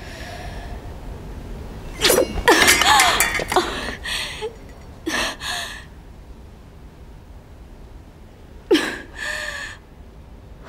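A young woman's pained cries and sharp gasps in several short bursts, the loudest about two seconds in, from an injured shoulder.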